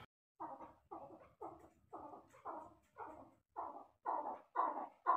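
Male chukar partridge (chakor) calling: a run of repeated 'chuk' notes, about two a second, growing louder near the end as the call builds.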